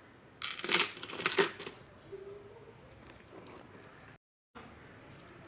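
Two loud bursts of crinkling, rustling noise in the first two seconds, followed by quieter faint handling sounds.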